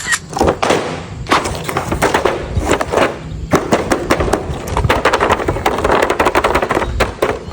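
Dense, rapid clattering and knocking with scattered thuds, typical of plastic toys and their packaging being handled.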